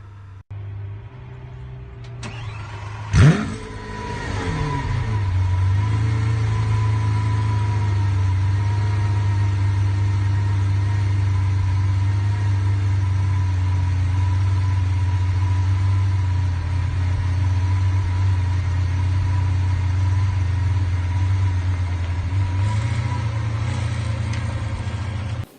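A performance car engine starts: it cranks briefly, catches with a loud rev flare about three seconds in, and then settles into a steady idle that cuts off abruptly near the end.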